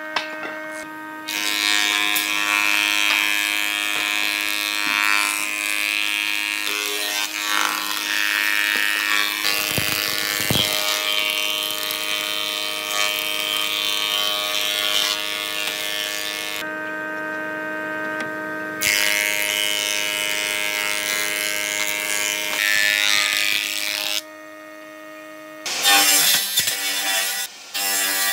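Industrial thickness planer running with a steady hum, its cutterhead shaving pallet-wood boards fed through it. The sound changes abruptly a few times, and near the end a table saw cuts a board.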